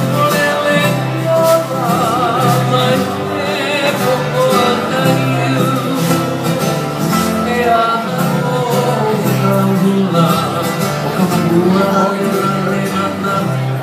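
Live hula music: a guitar playing over a stepping bass line, with a singing voice carrying a wavering melody.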